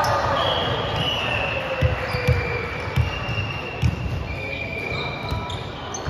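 A volleyball thumping about four times, unevenly, on a hardwood sports-hall floor, with short sneaker squeaks on the court and the players' chatter echoing in the large hall.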